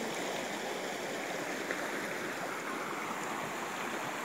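Shallow creek water flowing over rocks, a steady rush.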